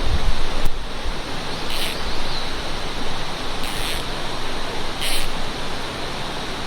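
Mountain stream rushing steadily, with three short high-pitched swishes about two, four and five seconds in.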